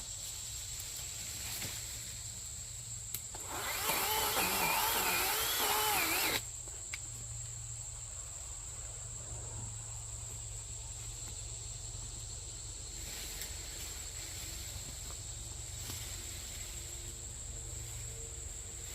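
A small engine or power tool running steadily. A louder stretch with a wavering pitch starts about three and a half seconds in and cuts off abruptly a few seconds later.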